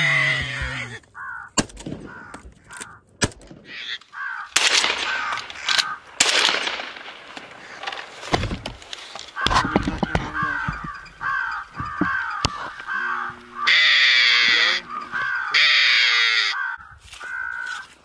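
Crows cawing over and over in short, harsh calls, several in quick series, with louder bursts of cawing near the end. A burst of rushing noise about five seconds in.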